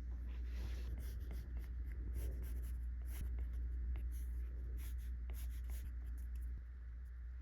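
A stylus drawing on a tablet screen: quick scratchy strokes and light taps, irregular, over a steady low hum.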